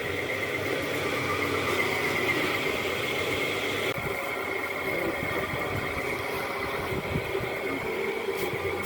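Vehicle engine running steadily under continuous road noise, with a faint steady whine throughout.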